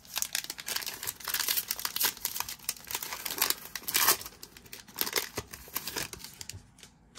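Foil wrapper of a Panini Mosaic Baseball hobby pack being torn open and crinkled in the hands: a dense, irregular crinkling and tearing that dies down near the end as the cards come out.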